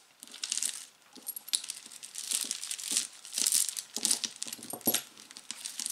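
Jewelry being handled: beads and metal chain pieces clicking and clinking against each other, with a crinkling rustle throughout.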